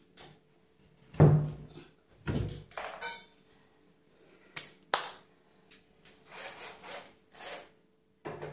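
Irregular knocks and clatters of tools and cabinet parts being handled, the loudest a thud a little over a second in, with a brief metallic ring about three seconds in.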